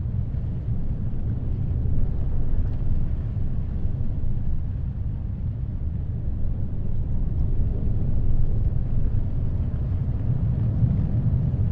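Heavy ocean surf and wind ambience: a deep, steady rumble of waves and wind that swells and eases slowly, with no distinct wave crashes.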